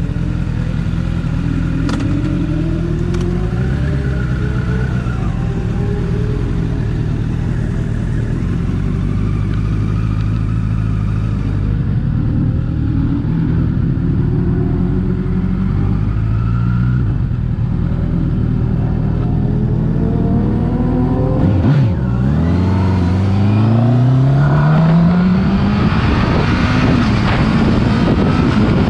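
Honda CBR1000's inline-four engine running while the motorcycle is ridden, its revs rising and falling several times. About two-thirds of the way through, the revs drop sharply, then climb steadily for several seconds as the bike accelerates.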